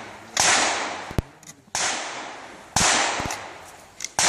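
Four pistol shots from elsewhere on the range, roughly a second apart, each with a sharp crack that trails off into echo; a light click falls between the first two.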